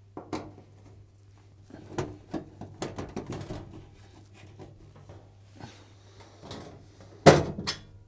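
Phillips screwdriver undoing the back-panel screws of an LG washing machine: scattered small clicks and scrapes of metal on metal. A louder knock comes near the end as the back panel is taken off.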